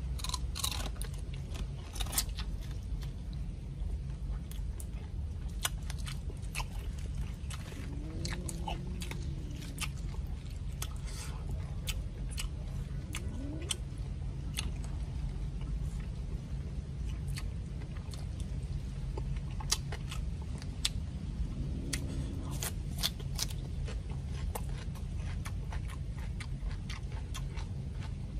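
Close-up eating sounds: a person chewing and crunching crispy fried crocodile and raw bok choy, with irregular wet clicks and crunches over a steady low hum.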